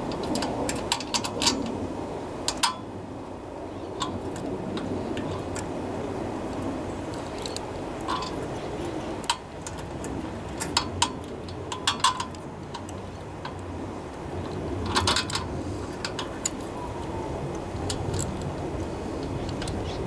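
Scattered small metallic clicks and taps as a replacement carburetor, its gasket and mounting bolts are handled and fitted onto a Tecumseh 3.5 hp small engine, with a cluster of quick clicks about three-quarters of the way through, over a steady low background noise.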